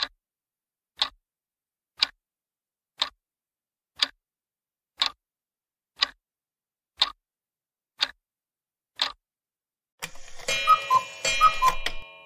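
Clock-tick countdown sound effect: ten even ticks, one a second. Then a short ringing sound effect with a few quick notes fills the last two seconds, marking the timer running out as the answer is revealed.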